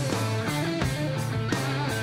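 Instrumental rock music without vocals: an electric guitar riff over bass, with drum hits about four times a second.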